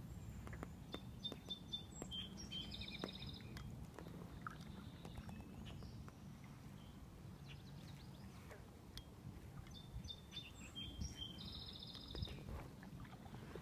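A songbird singing the same short song twice, about nine seconds apart: a few brief clear notes and then a buzzy trill. Under it runs a steady low rumble with scattered faint clicks.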